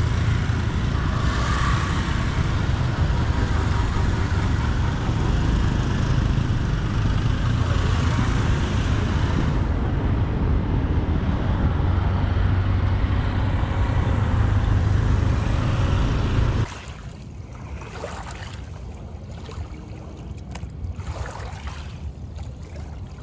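Steady heavy rumble of wind on the microphone and road noise while riding through motorbike and car traffic. About seventeen seconds in it cuts off suddenly to a much quieter, faint background.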